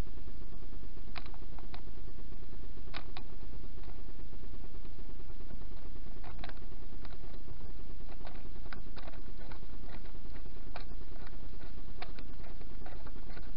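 Scattered metallic clicks and creaks from hand tools working a flywheel puller on a Yamaha DT125R's flywheel, over a steady low hum.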